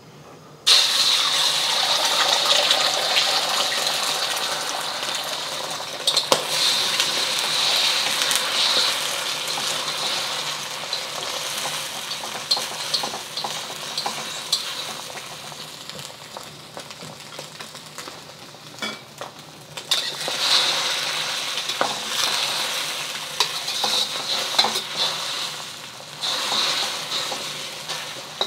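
Beaten eggs hitting hot oil in a wok, sizzling suddenly about a second in, the sizzle slowly dying down as they set. A utensil clicks and scrapes against the wok as the eggs are stirred, busier near the end.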